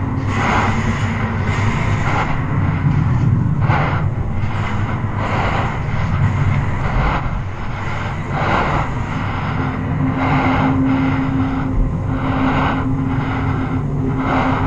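Loud, steady mechanical rumble with a low hum that drops out early on and returns about ten seconds in.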